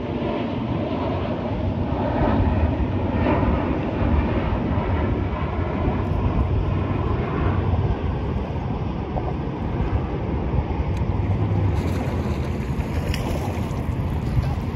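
Steady wind rumble on the microphone of an open boat, with water washing against the hull.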